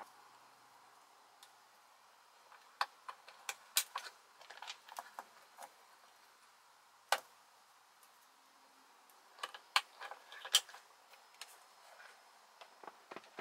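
Sharp plastic clicks and taps as wiring connectors are plugged into a new driver's airbag module and the module is handled at the steering wheel hub. They come in small clusters, with one louder click about seven seconds in.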